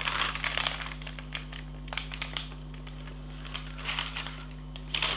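Parchment paper crinkling and rustling in short scattered bursts as a burger-smashing weight is pressed down on it, squashing a fried plantain half flat underneath.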